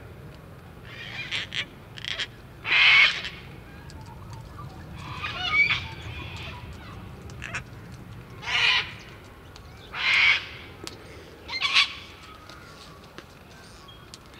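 Gang-gang cockatoo calling: about eight short, harsh calls at irregular intervals of one to three seconds, the loudest spread through the middle and second half.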